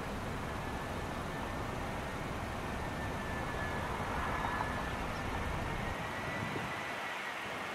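Airbus A320 jetliner on final approach: a steady rush of jet engine noise with a thin high whine that rises slightly in pitch as the aircraft nears.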